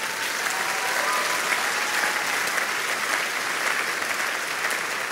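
Church congregation applauding, a steady wash of clapping.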